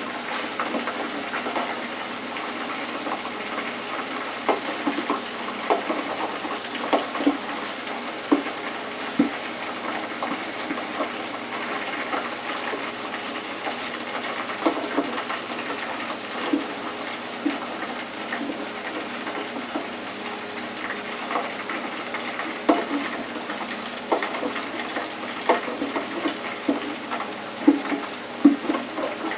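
Hot oil bubbling and sizzling in a small electric deep fryer as battered seafood fries, with scattered clicks and knocks of a metal utensil against the fryer. A few louder taps come close together near the end.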